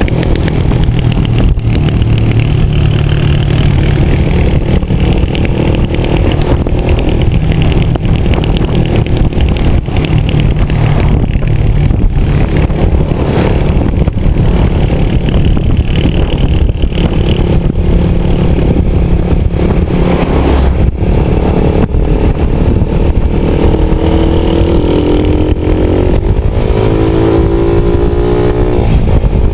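Loud, steady rumble of a vehicle travelling on the road, with frequent small knocks. Near the end an engine's pitch rises as it speeds up.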